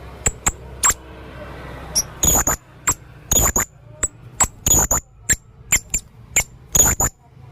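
Male blue-crowned hanging parrot (serindit) calling: short, sharp, high-pitched notes repeated about twice a second, some in quick pairs.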